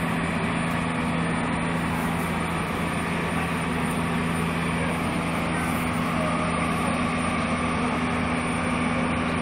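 Steady low engine hum with a rushing noise under it, the sound of heavy vehicles idling such as a fire engine.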